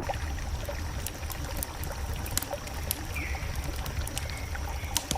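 Footsteps crunching on fresh snow, heard as irregular small crunches over a steady low rumble. There is a short high downward chirp about three seconds in.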